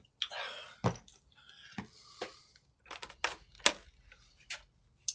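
A series of irregular sharp clicks and knocks, about eight in all, with a short rustling noise near the start, picked up by a doorbell camera's microphone.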